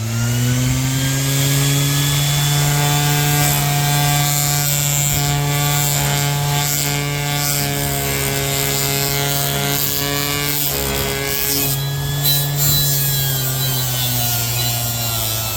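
Orbital sander with a 220-grit disc running steadily, sanding rust off a steel scraper blade clamped in a vise. Its motor hum and the scraping hiss dip briefly about two-thirds of the way through, then carry on.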